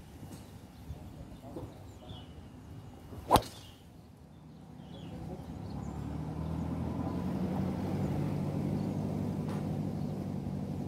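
Golf club striking a ball once, a single sharp crack about three seconds in. A low, steady motor drone then builds up and holds.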